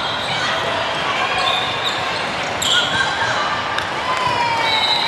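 Volleyball rally on a hardwood gym court: the ball struck a few times and sneakers squeaking on the floor in short high chirps, over voices and chatter in a large echoing hall.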